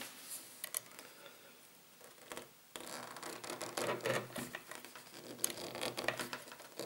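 Handling noise as metal crimp connectors on a mains cable are pushed onto the power-inlet prongs in an old film projector's base: faint scratching and small clicks. It is quiet for a moment about a second in, then the scratching grows busier.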